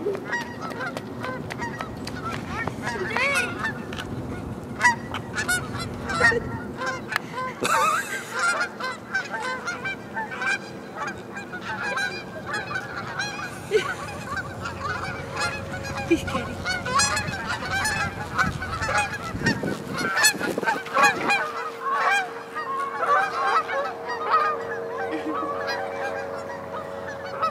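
A flock of Canada geese honking, many short calls overlapping without pause, as a small dog runs through the flock. A steady low hum joins in during the last several seconds.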